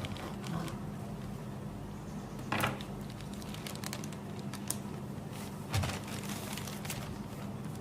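A parcel being unpacked by hand: a few scattered rustles and clicks of packaging being handled, over a steady low hum.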